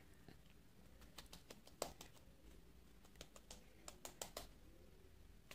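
Near silence broken by about ten faint, light clicks and taps of a plastic ice-cream cup being worked to free frozen ice cream, the loudest about two seconds in.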